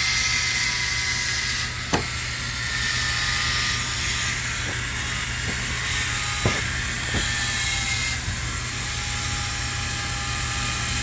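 Handheld power tool running steadily as it etches a template design into a hard-frozen ice block, giving a steady whine with a hiss. Two short clicks come about two seconds in and again about six and a half seconds in.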